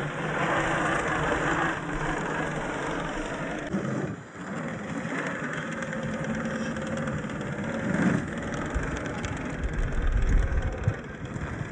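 Brushless electric motor and gear drivetrain of an Axial SCX10 III RC crawler running under load as it drives, mixed with its tyres on wet ground and loose sand and gravel. The sound breaks and changes abruptly about four and eight seconds in.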